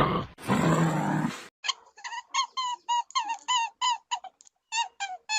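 An animal's harsh, low growling call that ends about a second and a half in, followed by a quick series of short, high squeaky calls, about four a second, each wavering in pitch.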